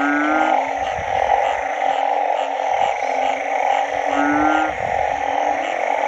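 Frogs calling after rain: a dense, steady chorus with a regular higher pulsing about twice a second. Over it, a nearby burrowing frog gives short, low calls, one at the start and another about four seconds in.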